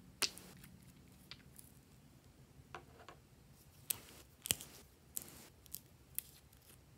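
Hands handling small glass and plastic bottles over a glass dish of slime: a string of light clicks and taps, with brief soft rustling squishes, the longest near the middle.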